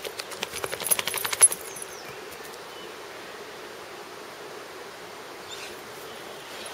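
Weimaraner shaking itself off, its ears flapping against its head in a rapid run of slaps for about a second and a half.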